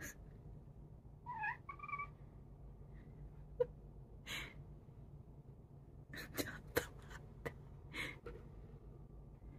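Ginger tabby cat giving a short, faint two-part meow about a second and a half in. A few short soft clicks and scuffs follow later.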